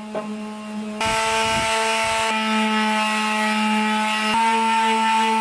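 An electric DeWalt palm sander runs steadily against the painted motorcycle gas tank, scuffing the paint before primer, with a steady motor hum. It is quieter for about the first second, then louder, and the hum steps up slightly in pitch about four seconds in.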